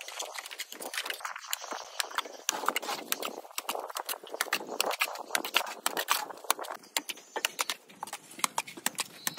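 Plastering trowel scraping and clicking against a mortar pan and the cement-rendered wall as cement mortar is scooped and applied: a rapid, uneven run of sharp clicks and scrapes.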